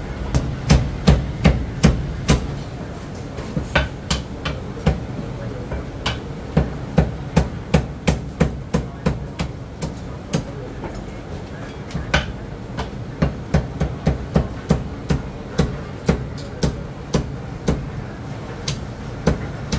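Heavy steel cleaver chopping roast meat on a thick wooden chopping block: runs of sharp chops, about three a second, broken by short pauses.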